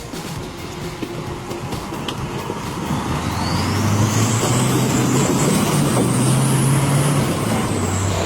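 Heavy truck engine running, growing louder from about three seconds in, with a faint high whine that climbs and then eases down.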